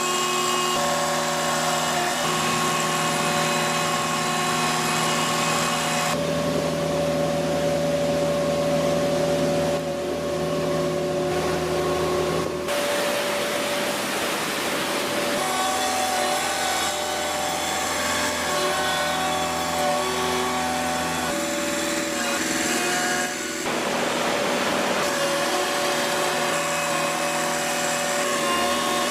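A motor-driven machine running steadily with a hum of several held tones that shift every few seconds.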